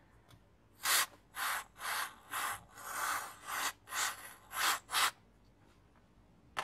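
Aerosol electronics contact cleaner sprayed through a straw nozzle in about nine short bursts of hiss, starting about a second in and stopping after about five seconds. The cleaner is being used to flush a water-damaged phone logic board.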